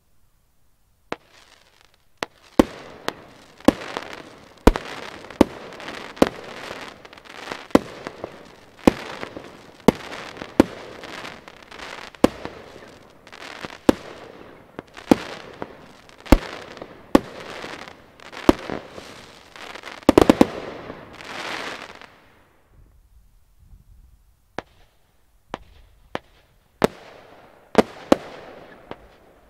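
Broekhoff 'Crown Executive' consumer fireworks battery firing: sharp reports about one a second, with a fizzing haze from the shells and their bursts between them. About twenty seconds in comes a quick flurry of shots, then a short lull before the shots resume.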